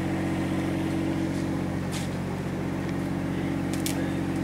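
A boat's engine running steadily, heard on board as a low, even hum, with a few faint clicks over it.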